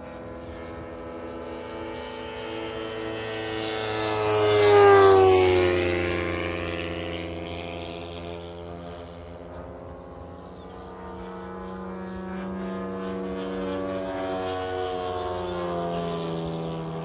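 Radio-controlled model warbird's nitro engine running hard as the plane makes a fast low pass. The engine note swells to its loudest about five seconds in and drops sharply in pitch as it goes by. Near the end it grows louder and higher again as the plane comes back around.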